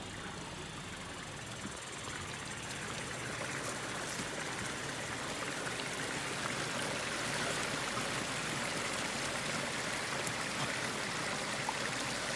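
Warm spring water flowing and trickling out of a rock cleft, a steady rush that grows a little louder over the first few seconds and then holds even.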